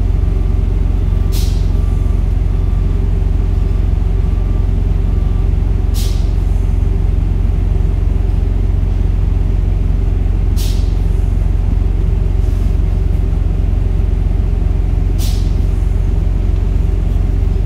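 Freightliner Cascadia's diesel engine idling with a steady low rumble, and four short, sharp hisses of air evenly spaced about four and a half seconds apart.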